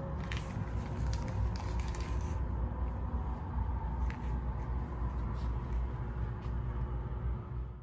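A steady low rumble of hotel-room background noise with a faint hum. A few light clicks and taps come in the first half and about four seconds in.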